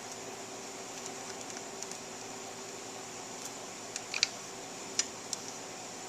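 A few faint, light metal clicks of a socket wrench on a long extension being fitted onto the reed cage bolts, over a steady background hum.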